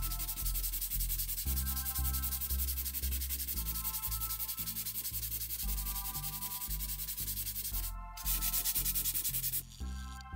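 Hand sanding dried wood filler on a knotty wooden tabletop with sandpaper: a steady scratchy back-and-forth rasp that stops briefly about eight seconds in. Background music plays underneath.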